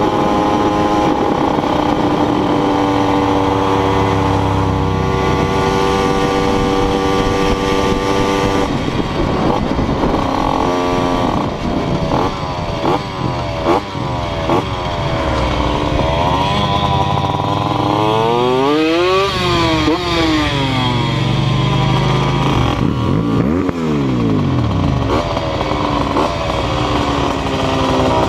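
Simson moped's small two-stroke single-cylinder engine running at a steady cruise, then revving up and down repeatedly, its pitch rising and falling through gear changes and dropping as it slows down.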